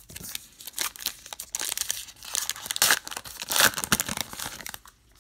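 A baseball card pack's foil wrapper being torn open and crinkled by hand, with a run of crackling tears that is loudest a little before the end and then stops.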